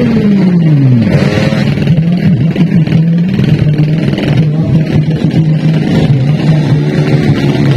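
Four-stroke underbone drag-bike engines. The pitch of one engine falls steeply in the first second, then an engine holds a steady, slightly uneven note.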